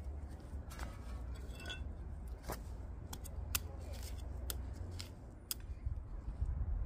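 Sharp, irregular clicks and snips of hand gardening tools working garden soil during planting, about seven over several seconds, over a low rumble.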